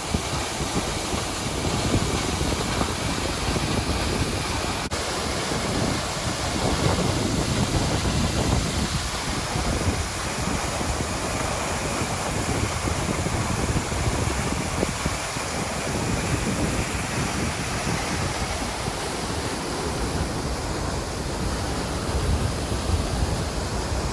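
Waterfall rushing, a steady full roar of falling water, with wind buffeting the microphone as uneven low rumbles.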